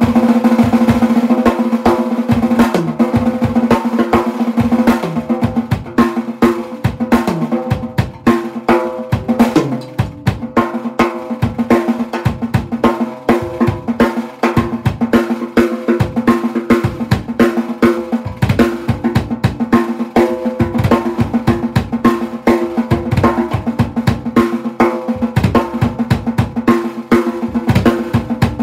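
Acoustic drum kit played solo: fast, dense snare drum strokes and rolls with bass drum hits, the drum heads ringing under a constant stream of strikes.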